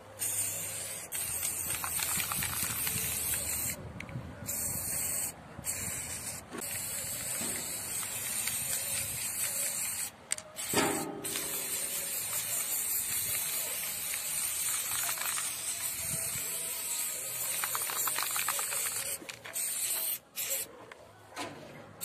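Aerosol spray paint can spraying in long hissing strokes, with several short breaks where the nozzle is released between strokes.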